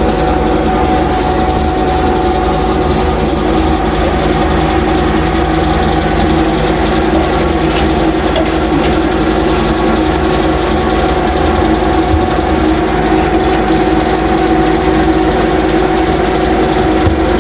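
A motor running steadily, a constant hum with a steady whine that does not change in pitch or level.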